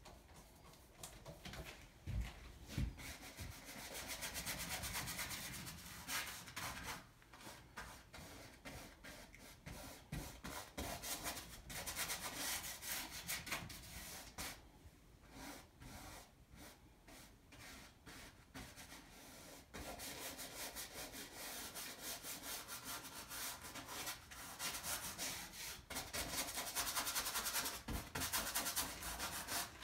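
Paintbrush bristles scrubbing paint onto stretched canvas, in runs of scratchy back-and-forth strokes with short pauses, as the sky is laid in. A couple of soft knocks about two seconds in.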